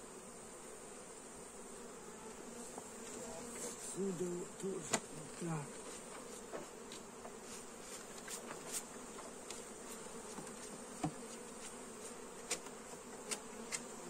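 Honeybees buzzing steadily in numbers around the hive, disturbed after being shaken off their combs, the buzz swelling briefly about four seconds in as bees fly close. A few faint clicks are scattered through.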